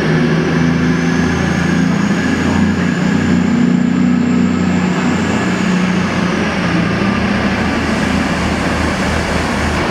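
CrossCountry Class 220 Voyager diesel multiple unit departing, its underfloor Cummins diesel engines running under load with a steady drone. A faint high whine rises over the first few seconds and falls away after the middle.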